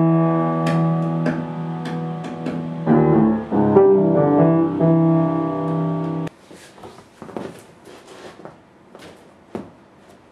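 Solo piano music playing sustained chords, cutting off abruptly about six seconds in. After that, only faint scattered clicks and rustles.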